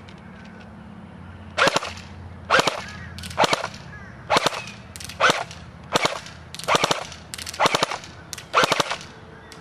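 JG MK36 battery-powered airsoft rifle firing on full auto in short bursts: about ten bursts of a few rapid shots each, one a little under every second, starting a couple of seconds in.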